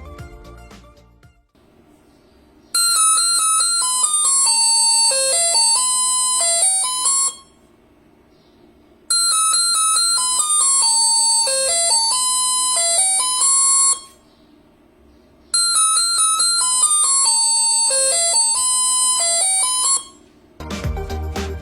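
A touch-activated door alarm circuit sounding an electronic tune of stepped beeping tones, played three times, each about four and a half seconds long, with short pauses between.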